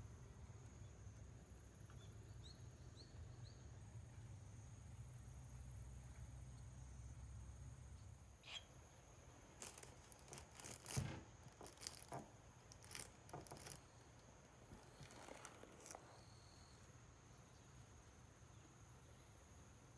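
Near silence, with a scatter of faint clicks and rustles in the middle, the strongest about eleven seconds in.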